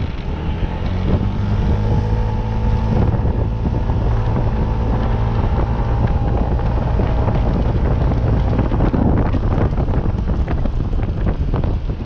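A vehicle engine running steadily under way, its pitch rising a little over the first few seconds, with wind noise buffeting the microphone.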